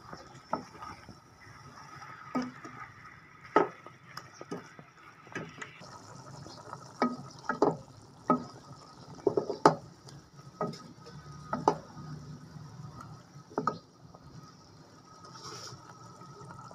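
Wooden spoon stirring potatoes and fenugreek leaves in a metal pot, knocking against the pot in irregular clacks about once a second, over a faint steady hiss.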